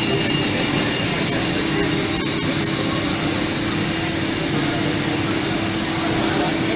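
Serkon MC50 automatic CNC fabric cutter running: a steady rush of air with a constant hum underneath, typical of the vacuum blower that holds the cloth down on the cutting table.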